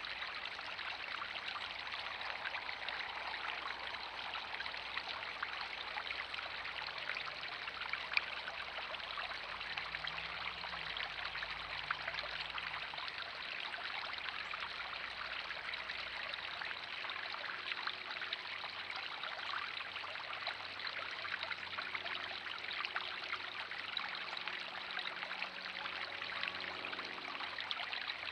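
A small garden pond's waterfall spilling from an upper basin and its fountain bubbler splashing: a steady, even rush of falling water. There is one brief click about eight seconds in.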